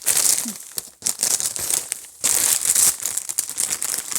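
Plastic bag of oyster crackers crinkling in bursts as it is handled, with short pauses about a second in and again a second later.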